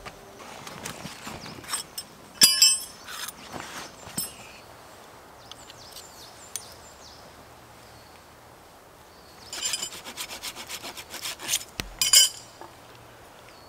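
Knife blade shaving and scraping a wooden stick, in scattered strokes and then a quick run of rapid strokes near the end.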